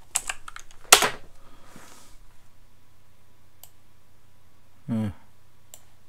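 Computer keyboard typing: a quick run of key clicks, with one louder key strike about a second in. A short murmur of a voice comes near the end.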